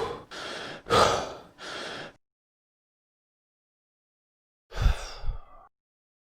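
A person breathing heavily in isolated breath sound effects: two loud, airy breaths, each followed by a softer one, in the first two seconds, then after a pause a single shorter sigh-like breath about five seconds in.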